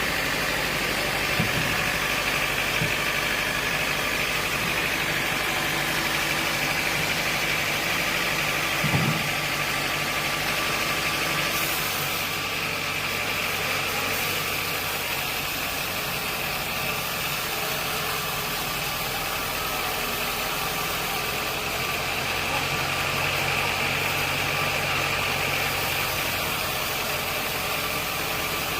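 Sawmill machinery running steadily: a constant hum with a steady high whine over it, and a couple of brief knocks, the clearest about nine seconds in.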